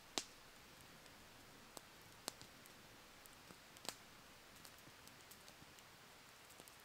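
Log campfire burning quietly, with a few sharp pops and small crackles from the wood, four clear ones spread across the few seconds, over a faint steady hiss.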